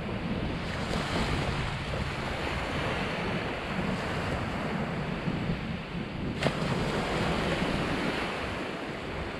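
Gulf surf washing steadily onto the beach, with wind buffeting the microphone. A single brief click about six and a half seconds in.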